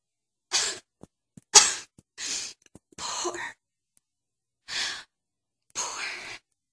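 A woman sobbing: about six short, breathy gasping sobs with pauses between them.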